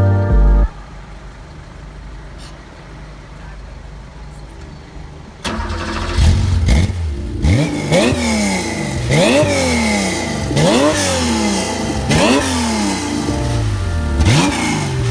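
A car engine comes in suddenly about five seconds in and is then revved over and over. The pitch jumps up in sharp throttle blips about six times, falling back more slowly each time.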